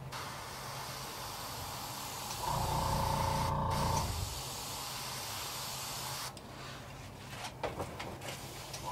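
Airbrush spraying paint, a steady hiss of air that stops about six seconds in. A short, louder steady hum with a low rumble runs from about two and a half to four seconds in.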